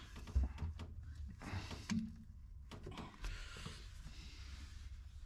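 Scattered light knocks, clicks and rustles of gloved hands working at an old Datsun 521 pickup's steering wheel, with a dull thump about half a second in.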